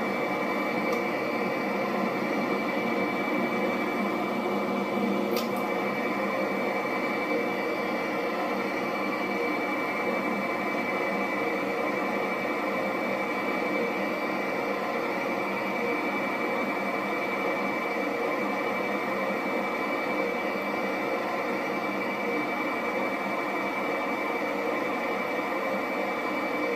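Jet engine running steadily, a constant high whine over an even rushing noise.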